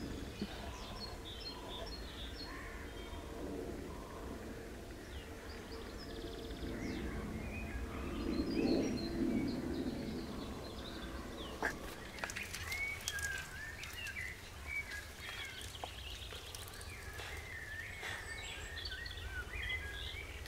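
Small birds chirping, busier in the second half, over a low steady rumble of camera handling, with a few faint knocks.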